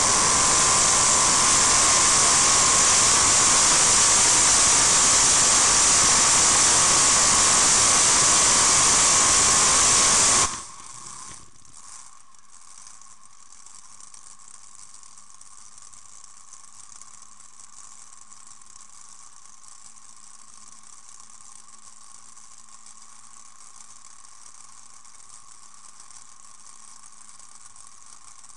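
Pulling tractor at full power under load, heard from on board as a loud, overloaded rushing roar with a high whine in it, which drops suddenly about ten seconds in as the run ends. It then runs on as a faint steady hum with the high whine still there.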